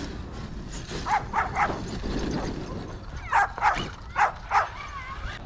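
A dog barking: seven sharp barks, three in quick succession about a second in, then four more about two seconds later.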